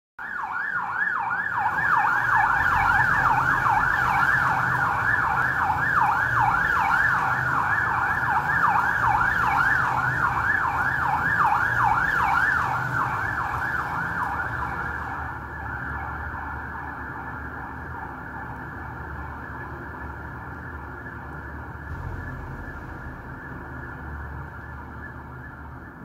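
Night watchman's motorcycle siren warbling: quick rising sweeps that repeat about four times a second, over a low engine rumble. About fifteen seconds in, the warble gives way to a quieter, steadier tone that slowly fades.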